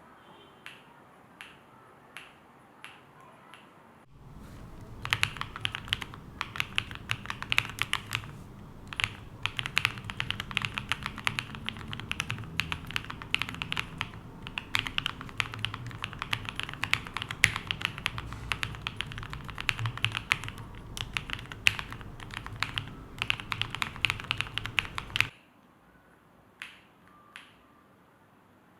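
Typing on the EAU75 V2 prototype mechanical keyboard: a few single keystrokes, then fast continuous typing for about twenty seconds, then a few more isolated keypresses near the end.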